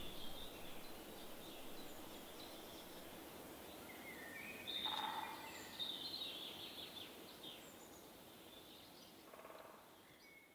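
Faint woodland birdsong: scattered bird chirps and short trills over a quiet hiss, with a clearer call about halfway through, fading out near the end.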